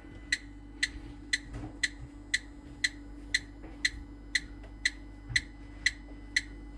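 Electronic gas leak detector ticking steadily, about two short high ticks a second, held to a joint. The rate stays even and never speeds up, as when the joint shows no gas.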